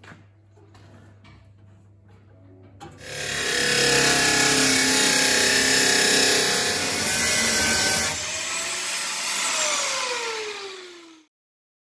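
Angle grinder spinning up about three seconds in and cutting into steel. Near the end it is switched off and its whine falls in pitch as the disc spins down, stopping just before the end.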